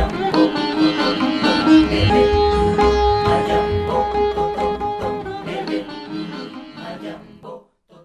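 Background music: the heavy beat stops at the start, and a plucked-string melody with one long held note carries on, fading out near the end.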